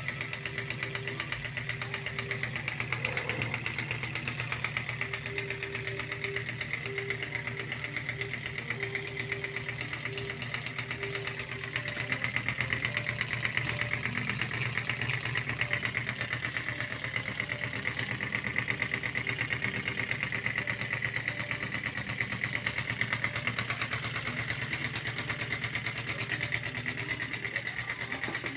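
Homemade candle-heated Stirling engine running: its wire crankshaft and linkages clatter in a fast, even ticking rhythm as the flywheel spins.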